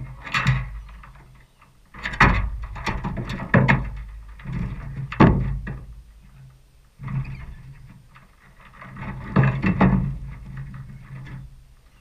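Rainbow lorikeets screeching: harsh, shrill calls in repeated clusters, loudest about five seconds in and again near ten seconds, over a steady low rumble.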